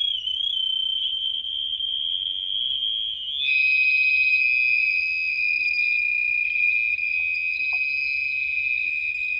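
An Arduino-driven buzzer sounding a continuous high-pitched tone, its pitch set by a potentiometer knob. The tone wavers slightly near the start, then drops to a lower steady pitch about three and a half seconds in.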